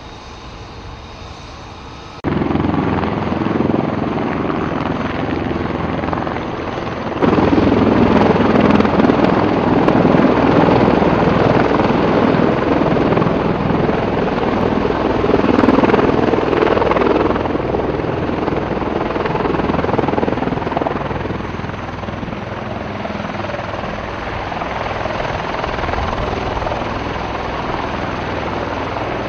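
MV-22 Osprey tiltrotor on the ground with its twin turboshaft engines running and proprotors turning: a steady, dense rumbling drone. It jumps louder suddenly about two seconds in and again about seven seconds in, then eases off somewhat in the second half.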